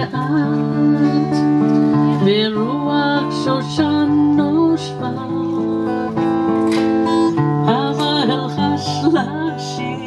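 Acoustic guitar music, strummed and picked, with a woman's voice singing in places.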